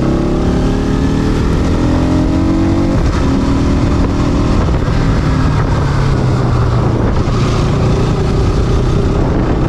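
Bajaj Pulsar NS200 motorcycle's single-cylinder engine running under way. Its pitch climbs, drops sharply about three seconds in as at a gear change, then climbs again.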